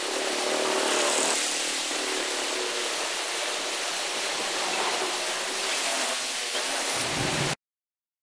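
Canal water rushing and churning past concrete bridge piers in a steady rush, with a faint hum underneath. It cuts off abruptly near the end.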